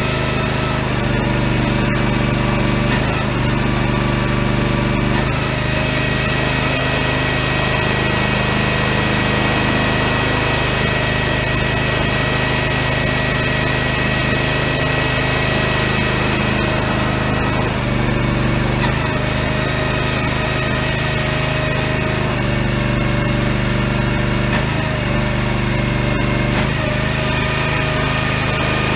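Regon R1 firewood processor running steadily as it saws and splits logs. Its machine note shifts under load several times, with a few sharp knocks of wood.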